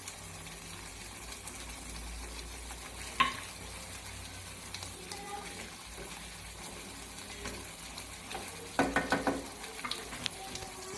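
Kaju curry masala paste frying in oil in a pan with a faint steady sizzle while a spatula stirs it. There is one sharp knock about three seconds in and a run of quick clattering spatula strokes against the pan near the end.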